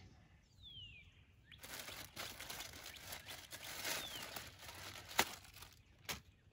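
Thin plastic bag rustling and crinkling as a plastic tub of catfish bait is worked out of it, starting about a second and a half in, with a sharp click a little after five seconds.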